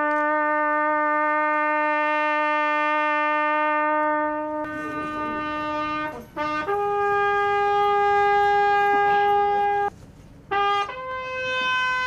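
Solo trumpet playing a slow ceremonial call of long held notes: a low note held about six seconds, a short repeat of it, then a higher note held about three seconds. After a brief break and a short note, a still higher note is held near the end.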